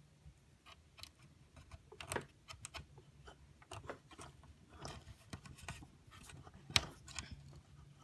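Irregular small clicks and scrapes of a wooden toothpick picking at a 3D-printed plastic model, with a sharper click near the end.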